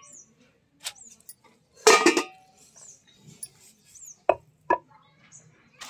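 A stainless steel bowl clinking and knocking as it is handled by a stone grinding mortar. The loudest clatter comes about two seconds in, with two short ringing taps a little after four seconds.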